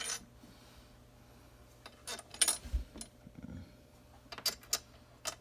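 Small hardware parts of a pedal go-kart (nuts, washers and caps) clinking and knocking as they are handled and fitted, in several short bursts of clicks with pauses between.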